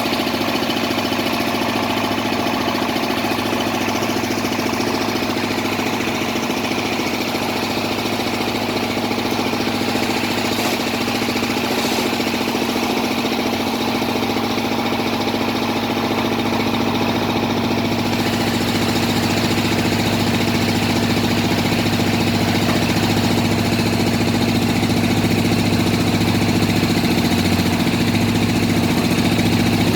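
Engine of a bored-pile drilling rig running steadily, getting slightly louder toward the end.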